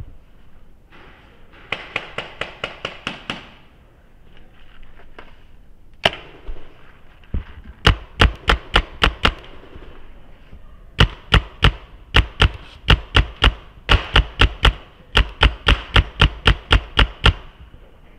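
Paintball marker shots in rapid strings, about five a second. A quieter string comes about two seconds in and a single shot near six seconds. From about seven seconds on come louder, closer strings of shots, each shot with a sharp crack and a low thump.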